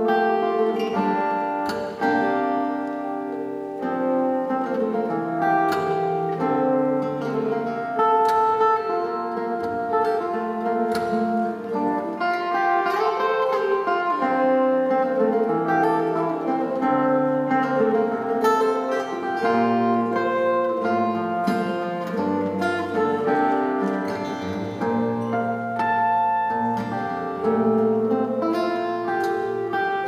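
Solo fingerstyle piece on a steel-string acoustic guitar: a plucked melody over a bass line, with stronger low bass notes in the second part.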